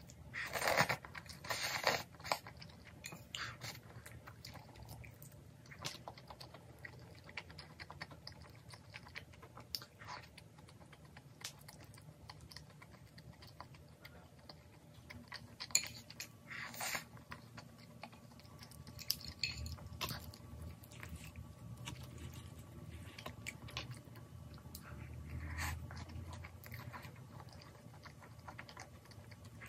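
A person chewing and eating tteokbokki (chewy rice cakes in spicy sauce) close to the microphone. Scattered sharp clicks of chopsticks on a ceramic bowl are loudest about a second in and again about 16 to 17 seconds in.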